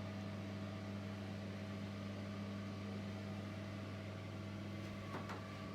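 A steady low electrical hum with a constant pitch, and a faint knock near the end.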